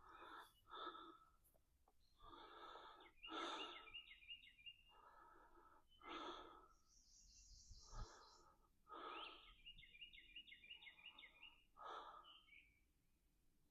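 A man breathing heavily and audibly close to the microphone, about ten drawn breaths: laboured breathing from chest congestion. Birds chirp in quick trilled series in between, twice around the middle and once higher-pitched.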